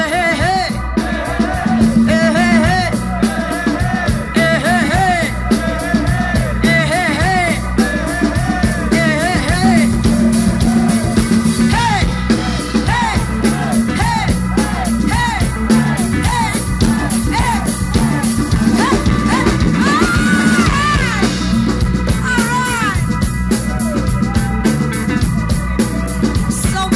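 Live soul band playing: a woman singing lead over drums, electric bass and electric guitar.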